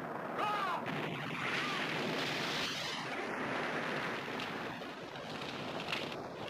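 Steady roar of a large fire on a film soundtrack, with a brief wavering high cry about half a second in.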